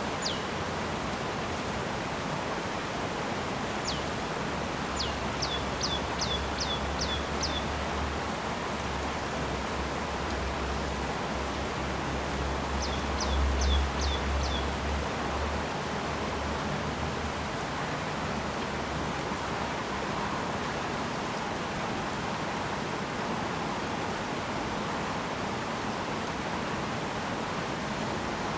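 Steady rain falling in a rice field, with a bird calling in quick series of short, high notes that each sweep downward, twice in the middle. A low rumble swells and fades in the middle as well.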